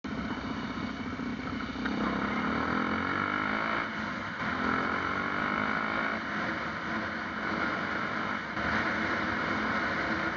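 Engine and road noise of the recording vehicle as it pulls away and accelerates, the engine note rising in pitch from about two seconds in, over a steady rush of tyre and wind noise.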